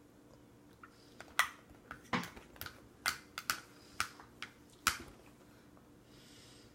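A plastic spoon clicking and scraping against a plastic baby bowl as food is scooped out: a quick run of a dozen or so sharp clicks from about one to five seconds in.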